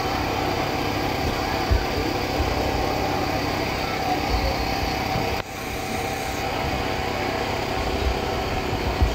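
Steady mechanical hum with hiss, engine-like, with a few soft low thumps; the level drops suddenly about five seconds in and then comes back.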